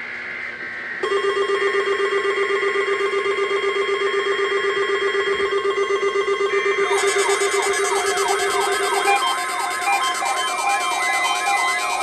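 Several weather alert radios alarming together for a Required Weekly Test. Rapidly pulsing electronic tones start about a second in. About seven seconds in a warbling siren-like alarm, sweeping up and down about twice a second, joins them, with repeated short high beeps over it.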